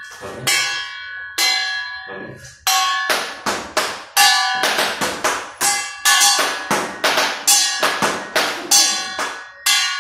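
A steel plate held up and struck repeatedly as a bell, each hit ringing out with a metallic clang. The strikes come slowly at first, then quicken to about two or three a second from about three seconds in.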